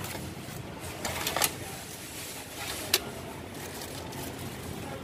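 Plastic carrier bag rustling and styrofoam food boxes being handled on a counter during packing, with one sharp click about three seconds in. A steady low rumble runs underneath.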